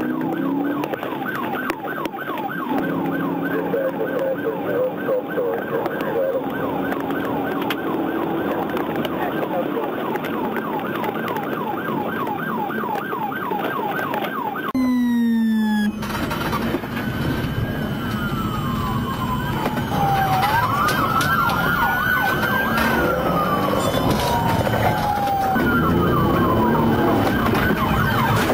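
Police car siren in a fast yelp. About halfway it switches to a slower rising-and-falling wail. Engine and road noise run underneath.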